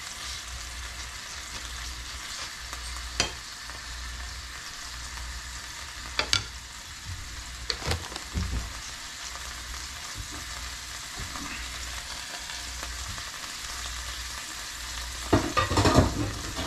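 Catfish fillet sizzling steadily as it fries in hot olive oil in a frying pan. A few sharp knocks break through, and a louder burst of clattering comes near the end.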